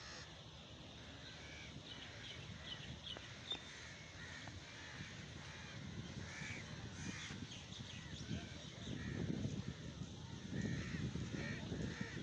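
Birds calling over and over in short harsh calls, several a second. A low rumble grows louder over the last few seconds.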